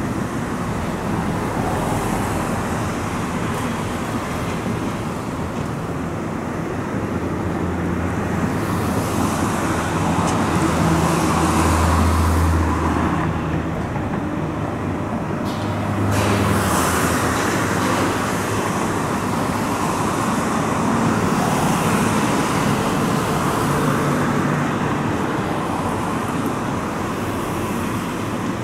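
Road traffic: a continuous wash of car and heavier vehicle engine and tyre noise, swelling as vehicles pass, loudest about twelve and sixteen seconds in.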